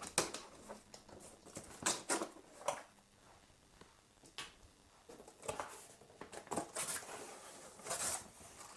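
Cardboard box being opened and handled: scattered scrapes, taps and short rustles of cardboard flaps and packaging, coming irregularly every second or so.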